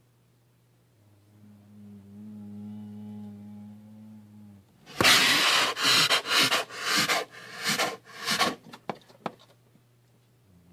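A low steady hum, then a bear at close range huffing and panting in a run of loud, rapid breaths, about two a second, that die away after about four seconds.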